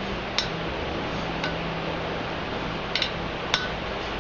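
Hammer blows on hot steel at the anvil: four sharp metallic strikes spaced unevenly, some with a brief ring, over steady background noise.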